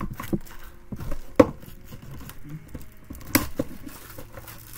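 A plastic movie disc case being handled: a few sharp clicks and knocks from the case, the loudest about a second and a half in and two more near three and a half seconds, over a light rustle.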